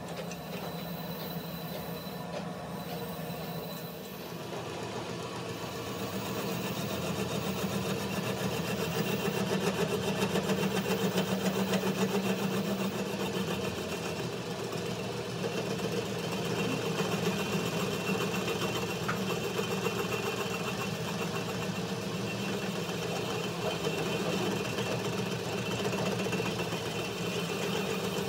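Metal lathe running, spinning a welded truck drive shaft tube: a steady mechanical hum with a fine rapid rattle, growing louder over the first several seconds and then holding steady.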